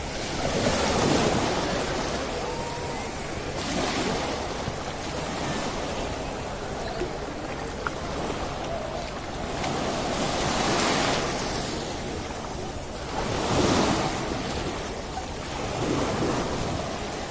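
Sea surf on a sandy beach: waves breaking and washing in one after another over a steady hiss, swelling loudest a second in and again about two thirds of the way through.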